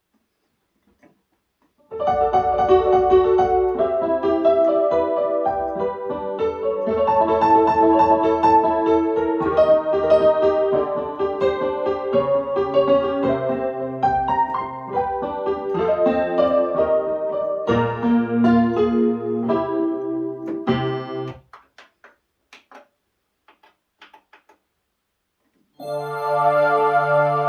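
Yamaha QS300 synthesizer playing a piano-type stock sound: a passage of notes and chords starts about two seconds in and stops about two-thirds of the way through. After a short pause, a different held sound with deep bass notes starts near the end.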